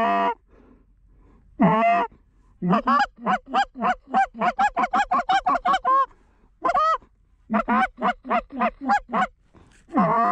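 Hand-blown goose call sounding Canada goose honks and fast clucks. A single honk comes about two seconds in, then a rapid run of clucks at about four a second, another honk, a second run of clucks, and a honk near the end: calling to a flock of Canada geese that is coming in toward the decoys.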